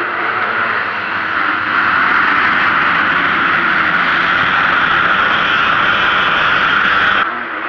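A field of motocross bikes accelerating together, their engines blending into one loud, even drone that grows louder about two seconds in and drops sharply near the end.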